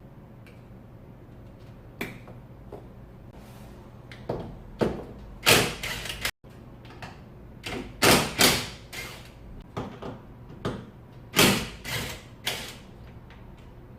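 Hand work on a car's power-folding side mirror: a series of sharp plastic clicks, knocks and short rasping scrapes, the loudest bunched in the second half.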